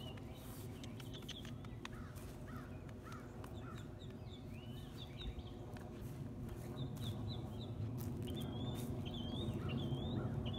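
Birds chirping: a string of short rising-and-falling notes, coming thicker and faster in the second half, over a steady low hum.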